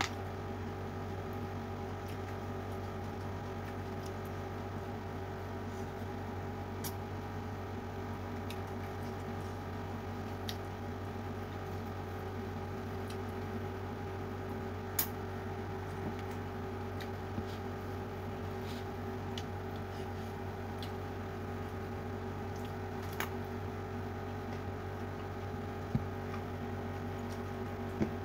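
Eating by hand: fingers squeezing and mixing rice with chili-sauced fish on a plate, and chewing, heard as scattered soft wet clicks and squishes over a steady background hum.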